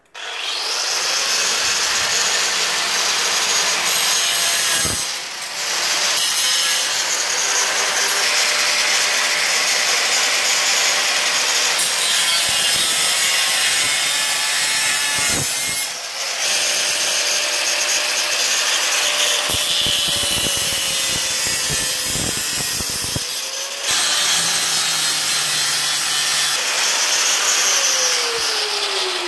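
Angle grinder cutting through the metal frame of a clothes drying rack: a loud, steady grinding with a motor whine, easing briefly about 5, 16 and 24 seconds in. Near the end the motor winds down with a falling whine.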